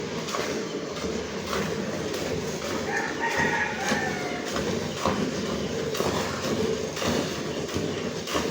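A rooster crows once, about three seconds in, a single call lasting about a second, over continuous background noise with scattered knocks.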